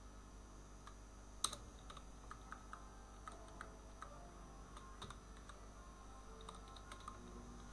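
Faint typing and key clicks on a computer keyboard, scattered and irregular, with one sharper click about a second and a half in.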